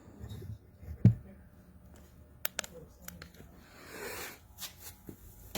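Quiet interior with scattered small handling clicks and knocks. There is one low thump about a second in and a soft rustle around four seconds.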